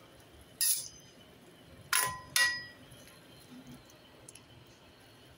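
A metal utensil clinks against a cooking pot three times with a short ring: once just under a second in, then twice in quick succession about two seconds in.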